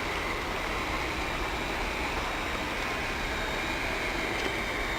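Heat gun and blower of a hot-air PVC welding machine running steadily: an even hiss of blown air with a faint high whine.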